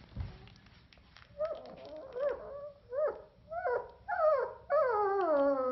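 German Shepherd puppy whining: a run of short whimpers, each rising then falling in pitch, about two a second and growing louder from a second or so in. It ends in one long call that slides down in pitch, like a small howl.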